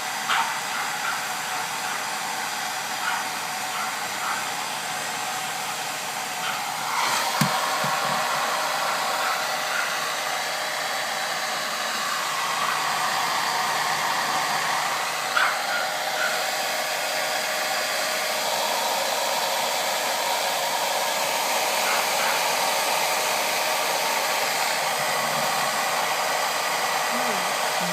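Hair dryer running steadily, with a few brief sharp sounds over it.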